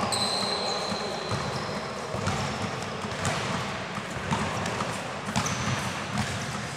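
Players' shoes squeaking on a futsal court floor, with a few knocks of the ball during play.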